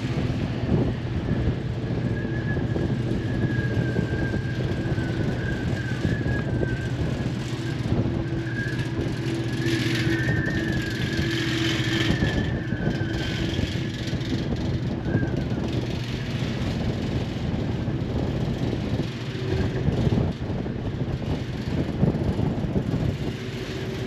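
Car ferry under way: its engines running with a steady low drone under a constant rushing noise, and a faint wavering high whine for a stretch through the middle.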